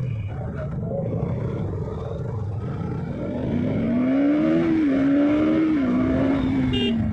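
KTM RC sport bike's single-cylinder engine running under way in traffic, heard from the rider's position. About three and a half seconds in, the engine is opened up and gets louder, its pitch rising, then it holds and sinks gradually toward the end.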